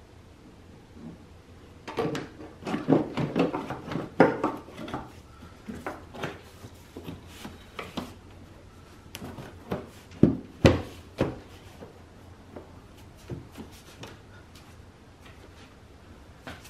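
Hard plastic air filter housing and intake duct being handled and pressed into place: a quick run of clicks and knocks about two seconds in, then scattered clicks and two sharp knocks near the middle.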